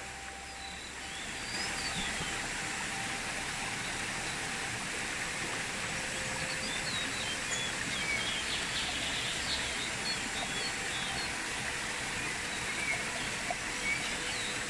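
Shallow stream water running over rocks in a steady rush, with small birds chirping now and then.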